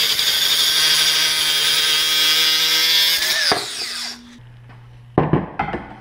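Power-tool cutoff wheel cutting through a rusted, seized wheel bolt: a loud, steady high whine that stops about three and a half seconds in, falling in pitch as the wheel spins down. A few short clinks follow near the end.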